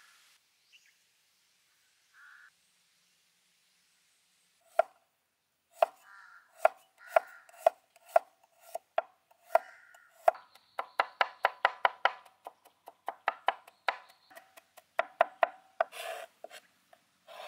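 Cleaver chopping garlic on a wooden cutting board: sharp knocks of the blade on the board that start about five seconds in, about two a second while slicing the cloves, then quicker, around four a second, as the garlic is minced.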